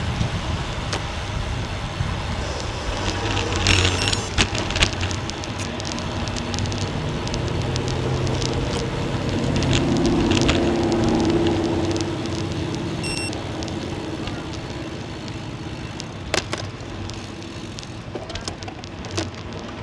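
Wind rushing over the microphone while riding a road bicycle, with scattered clicks and a motor vehicle passing, loudest about ten seconds in.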